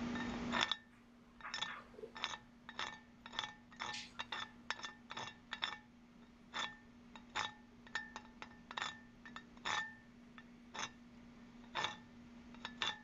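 Chipping hammer striking and raking slag off the toes of a 7018 stick-weld root pass on steel plate: irregular sharp metallic clinks, about two a second, some with a short ring.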